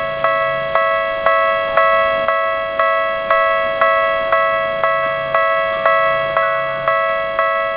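Electronic railway warning bell ringing steadily, about two strikes a second, each ring hanging on into the next.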